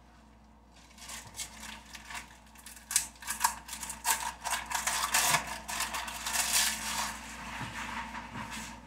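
Plastic wrapping crinkling and crackling as it is handled, in quick irregular clicks. They begin about a second in and are densest in the middle.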